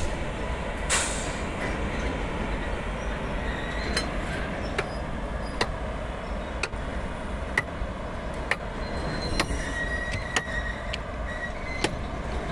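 WAG-7 electric freight locomotive hauling a goods train past, a steady rumble with the wheels clicking over rail joints about once a second.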